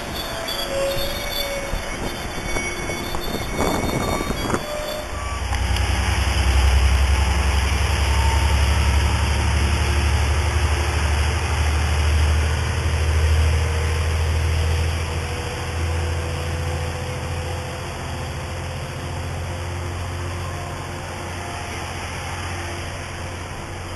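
Metrolink commuter train with an EMD F59PH diesel locomotive passing: a deep low rumble builds about five seconds in, holds strongest for several seconds, then slowly fades. Wind noise on the microphone runs throughout.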